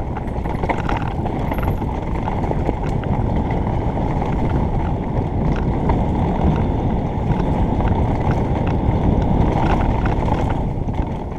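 Mountain bike rolling down a dirt forest trail: steady tyre rumble with scattered clicks and rattles from the bike, mixed with wind noise on a helmet-mounted microphone.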